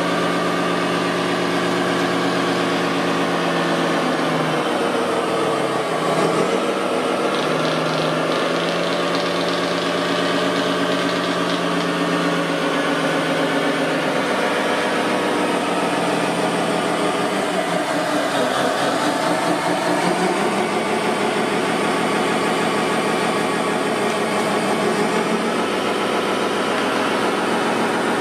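Radio-controlled construction machines running, a steady engine-like hum from their motors that rises and falls in pitch at times, around five seconds in and again around eighteen seconds.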